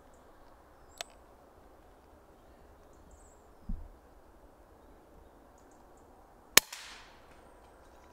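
A single shot from a moderated Daystate Mk4 pre-charged air rifle: one sharp crack about two-thirds of the way through, with a short tail after it. Before it, a faint click about a second in and a soft low thump near the middle.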